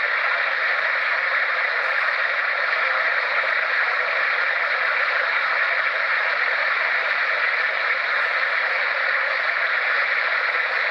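Spirit box radio static played back through a handheld digital voice recorder's small speaker: a steady, thin hiss of sweeping radio noise.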